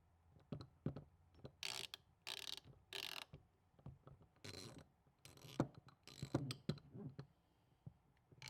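Fine-tooth hand ratchet wrenches clicking in short bursts, about one every second, as the handles are swung back and forth, with a few light handling knocks.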